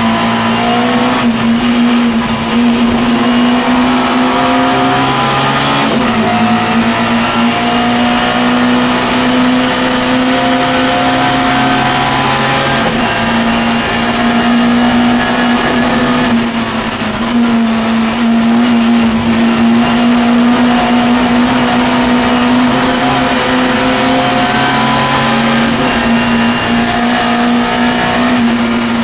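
Mini Miglia race car's BMC A-series four-cylinder engine, heard from inside the cabin, driven hard. Its pitch climbs through each gear and drops back at every shift, again and again.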